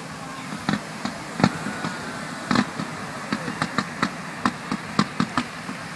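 Fireworks going off: irregular sharp pops and bangs, about twenty in a few seconds, with a faint rising whistle about one and a half seconds in.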